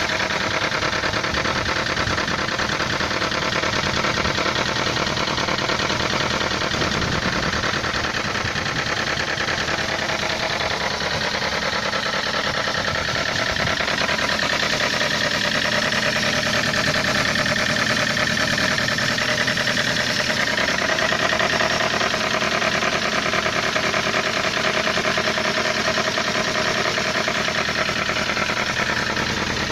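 Toyota 1SZ-FE four-cylinder petrol engine idling cold with a steady, fast diesel-like knocking clatter, which the owner takes for a problem in the exhaust tract.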